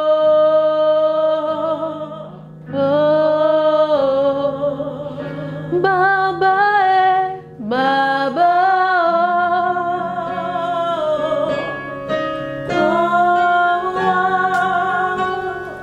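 A woman singing a slow prayer song in long held notes, in a few phrases with short breaths between them, over a soft sustained instrumental accompaniment.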